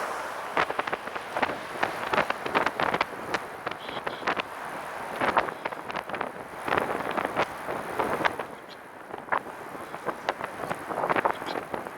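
Recumbent trike rolling along, with wind noise on the microphone and many sharp, irregular clicks and rattles: a random rattle from the rear of the trike, near the rear wheel, whose cause the rider has not found.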